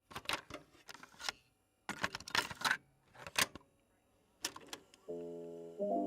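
Clusters of small clicks and rustling from objects being handled, in four short bursts. Soft piano music comes in about five seconds in.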